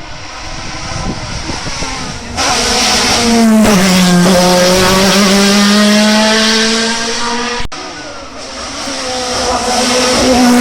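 Hillclimb race car engine at full throttle, loud and close, its pitch stepping down at gear changes with a brief cutout during one shift about three-quarters of the way through, then climbing again.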